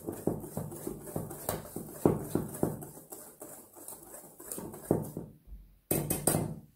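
Wire whisk stirring dry flour in a stainless steel bowl: quick rhythmic ticking and scraping of the wires against the bowl, about three to four strokes a second, with a short pause near the end before a few last strokes.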